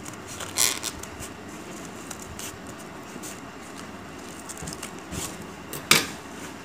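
Scissors cutting through corrugated cardboard, a few short snips and crunches of the blades. Near the end comes one sharp, loud clack as the metal scissors are put down on a glass tabletop.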